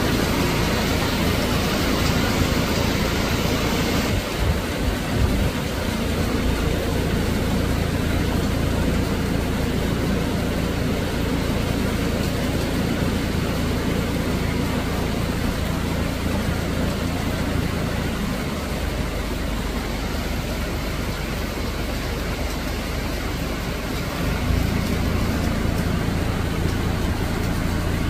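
Steady typhoon rain and wind: an even, constant hiss with a low rumble underneath.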